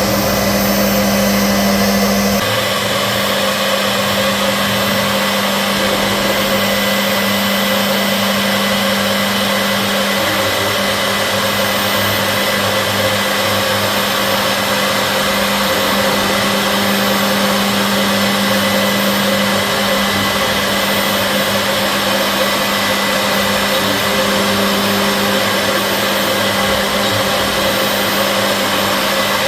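CNC machine running with a steady, loud motor whine and hum; the sound shifts slightly about two seconds in, then holds steady.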